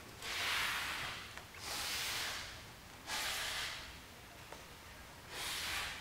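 Waxed sail twine being drawn through sailcloth by hand: four rasping swishes, each under a second, as the stitch around the brass ring is pulled through and tightened.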